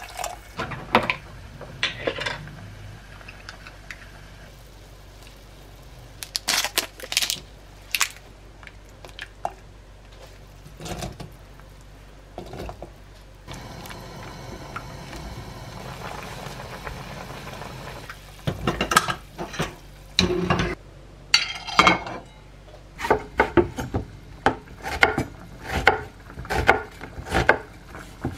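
Knocks and scrapes of a wooden spatula stirring vegetables in a coated saucepan. Near the end, a chef's knife chops onion on a wooden cutting board in quick, regular strokes.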